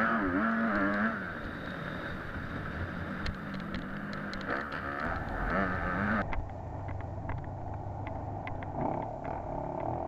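Motocross bike engine heard from the bike's own camera, revving up and falling back again and again as it is ridden hard through the turns and gears, with scattered sharp ticks over it.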